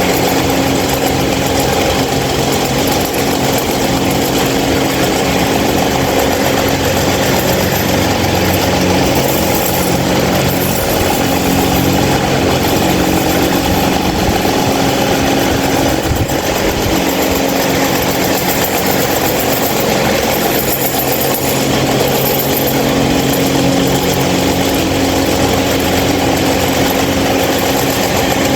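26-inch Mahita stand fan running loud and steady: a motor hum with several held low tones under an even rush of air.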